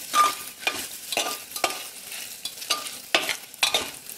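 A steel spoon stirring and scraping around a metal pressure cooker, with repeated scrapes and clinks roughly twice a second, some ringing briefly. Under it, hot oil sizzles with mustard seeds and dried red chillies frying in it.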